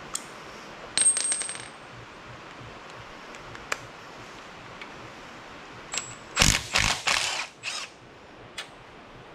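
A small steel part clinks and rings briefly on the concrete floor about a second in. Around six seconds in, a cordless impact wrench hammers in several short bursts on the crusty fine-thread kingpin bearing cap bolts of a Dana 25/27 steering knuckle.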